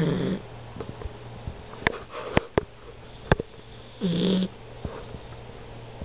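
Yellow Labrador puppy snoring: a short snore right at the start and another about four seconds in, with a few sharp little clicks between them. A faint steady hum runs underneath.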